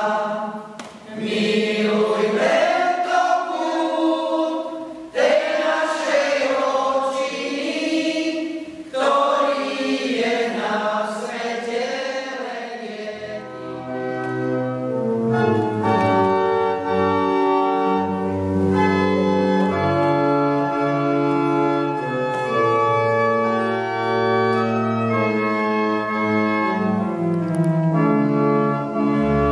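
A mixed choir singing without accompaniment. About thirteen seconds in, an organ comes in with held chords over a bass line and carries on.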